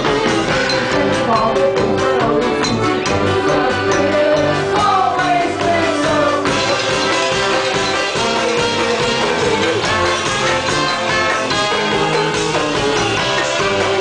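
Live band music: a piano accordion with electric guitar and drums over a steady beat, and a woman singing into a microphone.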